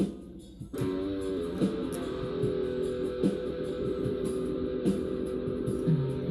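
Home-made instrumental music led by guitar: held notes over a steady beat, with the music dropping away briefly at the start before coming back in.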